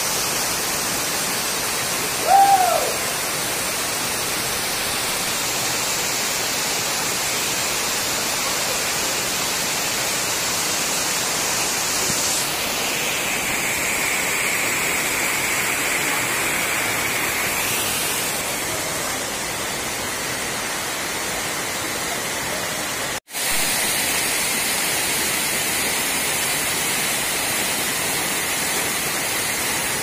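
Waterfall and stream, a steady rush of falling and tumbling water over rock. About two seconds in comes one short, loud call that rises and falls in pitch. Later the sound cuts out for a split second.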